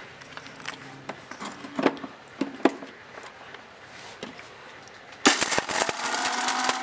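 A few light knocks, then about five seconds in an electric mixer-grinder starts suddenly and runs loud and steady, grinding garlic cloves and whole black peppercorns in its large jar.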